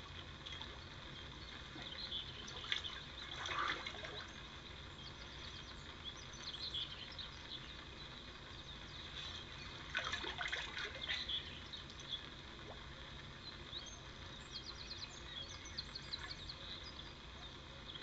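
A hooked carp splashing at the surface close to the bank during the fight, about three seconds in and again, louder, about ten seconds in. Birds call throughout, with a quick run of chirps near the end.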